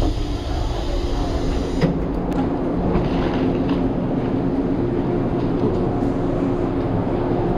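Black Ship (Kurofune) electric train with a steady running hum. There is a knock at the very start and a click about two seconds in.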